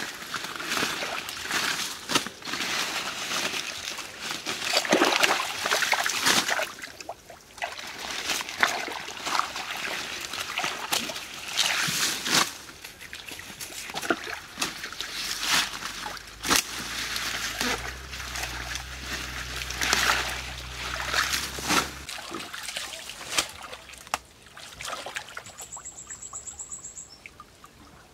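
Muddy pond water splashing, sloshing and trickling in irregular bursts, with leaves and stems rustling, as water hyacinth plants are torn up and thrown out. The sound grows quieter near the end as hands grope through the muddy water.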